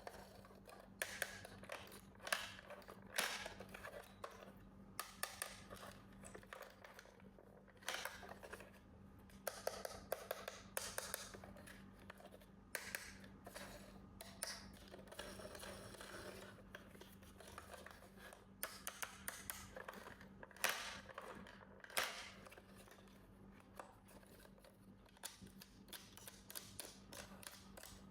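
Hands unpacking toys: a string of short clicks, snips and plastic and cardboard rustles at irregular intervals, over a faint steady hum.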